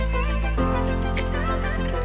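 Background music: held synth chords over a low bass note, the chord changing about half a second in, with a light crisp tick every second or so.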